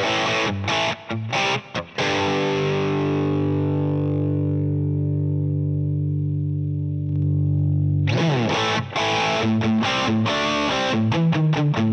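Distorted electric guitar through an Axe-Fx III modelling a Plexi 50W 6CA7 Marshall amp on a crunch setting: choppy riffing with short stops, then a chord left ringing for about six seconds, then choppy riffing again near the end.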